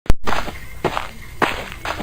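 A sharp click at the very start, then footsteps at about two steps a second.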